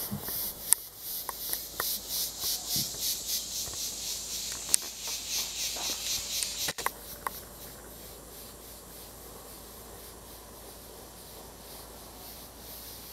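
Insects calling in a rhythmic high-pitched pulse, about three pulses a second, with a few sharp clicks. About seven seconds in the pulsing cuts off and a quieter, steady high hiss goes on.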